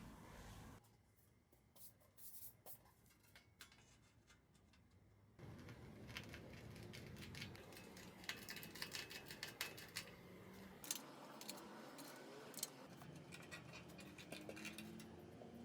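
Faint scattered clicks and light taps of small hard objects being handled, sparse at first, then over a low hiss and denser in the middle.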